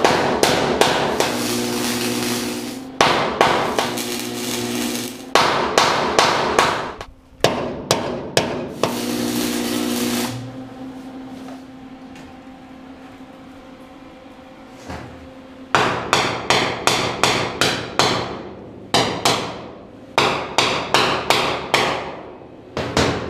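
Flux-core wire welder arc crackling along a steel plate seam in several short runs, then a lull with a low steady hum. After that comes a string of hammer blows on the hot mild-steel seam in quick bursts of several strikes, pounding the floor and wall plates flush.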